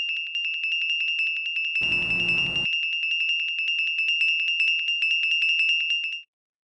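A high electronic beeping tone, pulsing rapidly at about eight beats a second like an alarm buzzer, that cuts off suddenly near the end. A short burst of hiss breaks in about two seconds in.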